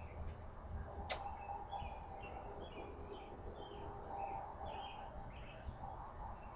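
Small birds chirping: a steady run of short repeated chirps over a low rumble of background noise, with one sharp click about a second in.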